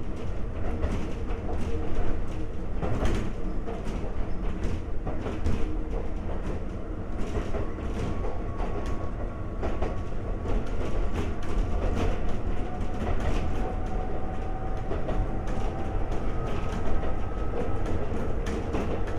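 Konan Railway 7000-series electric car (ex-Tokyu 7000) heard from on board while running: a steady rumble with irregular clacks of the wheels over rail joints. A faint motor and gear whine rises slowly in pitch from about eight seconds in as the train gathers speed.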